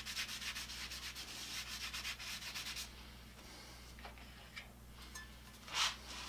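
Rusted steel circular saw blade being scrubbed by hand, fast rasping back-and-forth strokes that stop about three seconds in. A few light clicks follow, then a louder knock near the end.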